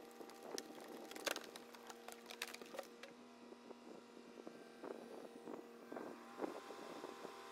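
Faint machinery running with a steady hum, broken by a string of sharp clicks and knocks, the loudest about a second in.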